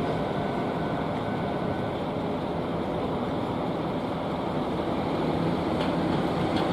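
Steady running noise of a train and road vehicles at a railway level crossing, with no clear rhythm.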